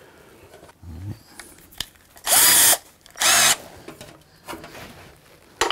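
Power drill run in two short bursts, about a second apart, boring holes in a metal armour plate for the buckle rivets. A sharp knock follows near the end.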